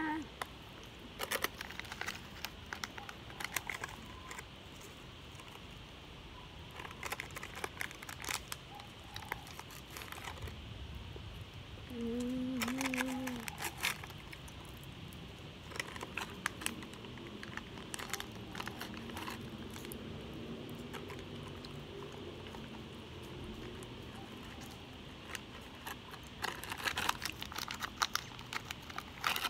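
Red plastic candy packet crinkling and crackling as it is handled, in scattered bursts. A short hum from a person's voice comes about twelve seconds in.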